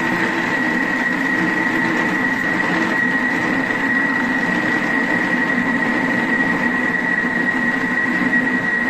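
Thermomix TM6 motor running steadily at a low stirring speed, mixing stiff cookie dough, with a steady high whine over a lower hum.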